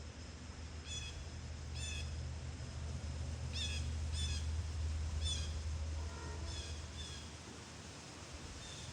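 A bird repeatedly giving short, downward-slurred chirps, about eight in all at irregular intervals, over a steady low rumble that swells in the middle.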